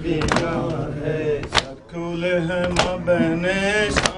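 Men chanting a noha, a Shia mourning lament, with rhythmic chest-beating (matam). Four loud open-hand slaps on the chest land about 1.2 seconds apart under the sustained chanting.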